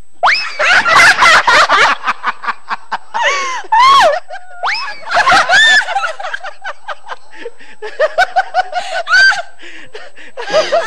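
A woman laughing hard into a handheld microphone: high squeals that rise and fall in pitch, then a run of quick, even "ha-ha" pulses, about five a second, a couple of seconds before the end.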